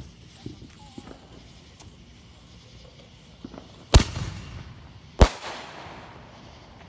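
Consumer aerial firework fired from the ground: a few faint small pops, then two loud sharp bangs about a second and a quarter apart as it sends shots up into the sky.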